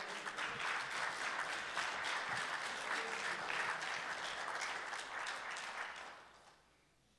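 Congregation applauding, a dense patter of many hands clapping that dies away about six seconds in.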